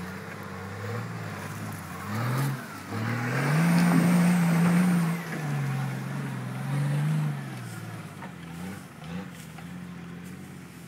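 Classic Range Rover's engine revving up and down, the note rising and falling several times as it crawls up a steep, rutted mud track. It is loudest about four seconds in, then eases off and fades as the truck climbs away.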